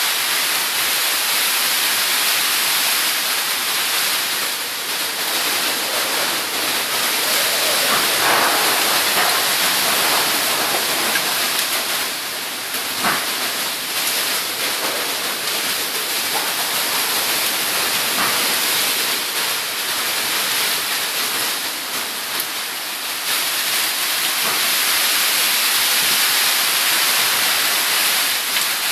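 Heavy rain falling in a steady, loud hiss, with a single faint tap about halfway through.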